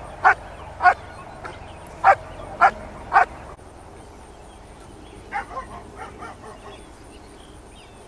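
German Shepherd barking at a helper hidden in the blind, the guarding bark of the Schutzhund bark-and-hold: a run of sharp, loud barks about half a second apart over the first three seconds or so, then the barking stops abruptly.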